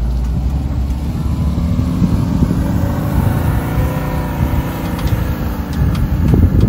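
VW T3 Syncro van's engine pulling hard through a steep sandy dip, its pitch rising for a couple of seconds and then falling away. Knocks and rattles come near the end as the van works over the uneven ground.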